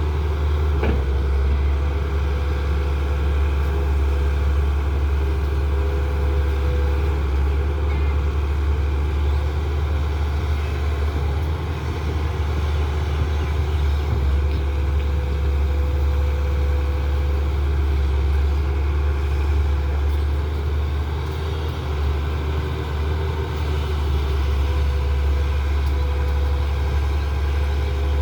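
Excavator's diesel engine running steadily, with a faint wavering whine above the low engine note.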